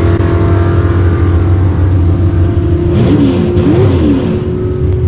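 Loud steady car engine rumble, with a few quick revs rising and falling in pitch about three to four seconds in.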